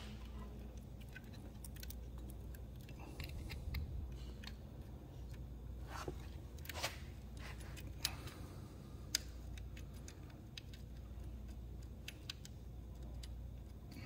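Faint clicks and clinks of small metal hardware (ring terminals, bolts and washers) handled while jumper wires are fitted to battery terminals, with a few sharper clicks around the middle, over a low steady hum.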